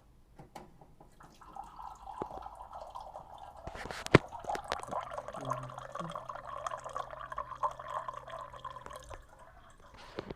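Water running from a tap into a cup, filling it, starting about a second and a half in and stopping about a second before the end. A sharp click about four seconds in is the loudest sound.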